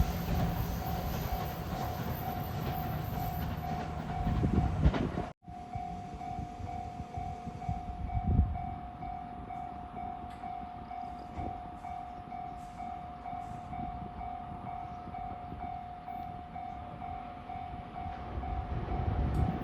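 Level-crossing warning bell ringing in a steady repeating electronic clang while a train runs over the crossing, its rumble loud for the first five seconds. The sound cuts out abruptly about five seconds in, then the bell carries on over a fainter rumble.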